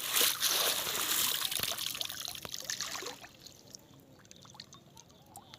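Water splashing and pouring for about three seconds, then dying away to faint small drips and clicks.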